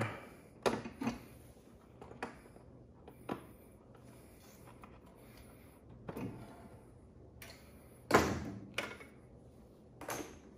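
Scattered clunks and light rattles of hands handling parts on a lawn tractor engine during disassembly. The loudest knock comes about eight seconds in.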